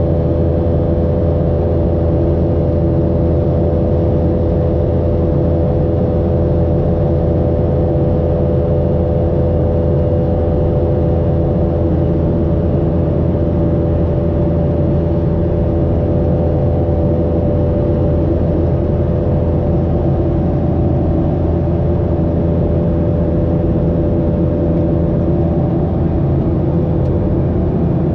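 A Boeing 737-800's CFM56-7B turbofan heard inside the cabin during the climb: a steady, loud engine drone with a deep rumble and several steady tones held in a cluster, the fan's buzzsaw.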